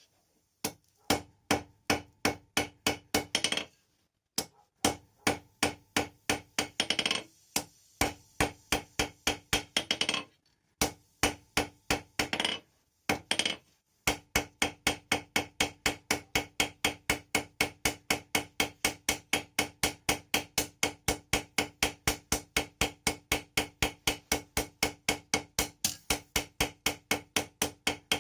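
Hand hammer striking hot steel on an anvil in short runs of blows with brief pauses between, then steady, unbroken hammering at about four blows a second for the second half, with the anvil ringing under each blow.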